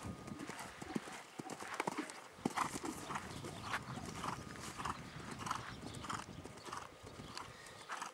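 A horse's hoofbeats on soft arena sand as it canters and takes a jump, settling from about three seconds in into a regular canter beat of roughly two strides a second.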